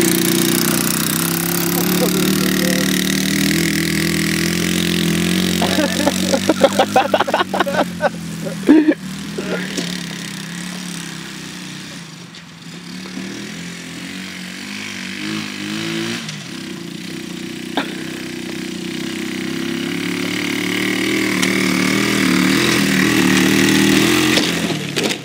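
Small 110cc ATV engine running and revving, its pitch rising and falling. It fades about twelve seconds in and grows louder again toward the end. About six to nine seconds in there is a run of rapid clattering and a sharp knock.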